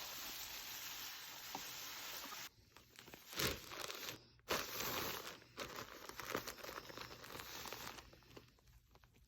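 A steady hiss that cuts off suddenly, then crinkling and tearing with a few sharp knocks.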